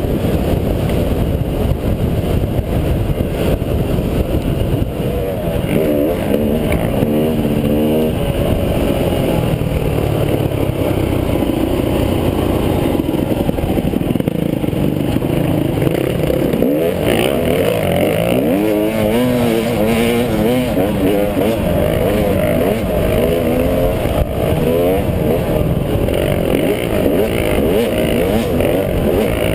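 Dirt bike engine running under way, its pitch rising and falling with the throttle, over heavy wind rumble on the microphone.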